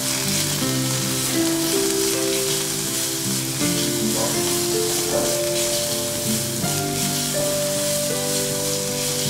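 Grated carrot, diced capsicum and tomato sizzling in hot oil in a kadai as a spatula stirs them, a steady hiss, with background music playing.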